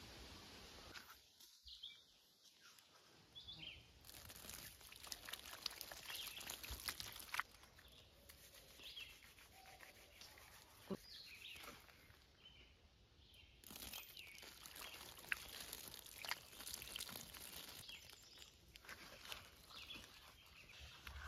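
Quiet woodland ambience: faint, scattered bird chirps over a low hiss, with a few small clicks.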